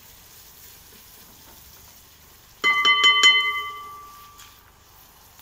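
A stirring utensil knocked about five times in quick succession against a cast-iron pot, about two and a half seconds in, with a clear bell-like ring that fades over a second or so.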